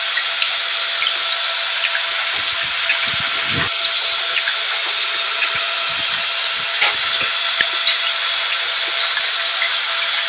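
A vacuum cleaner running steadily, its motor holding a few fixed whining pitches, mixed with the steady hiss of rain and scattered drop ticks.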